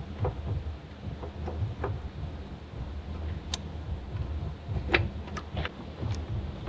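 Scattered light clicks and knocks of hard plastic and metal as an air-suspension control valve unit with its hoses is worked by hand into a motorcycle frame, the sharpest knock about five seconds in, over a steady low hum.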